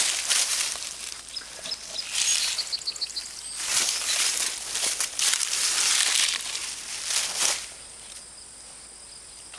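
Dry pumpkin vines and leaves rustling and crunching in repeated bursts as they are pushed through, stopping about three quarters of the way in. A steady high-pitched insect trill carries on underneath and is left alone at the end.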